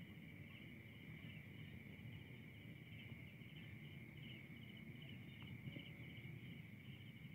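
Faint, steady chorus of night crickets trilling, a continuous pulsing high chirr, over a low background rumble.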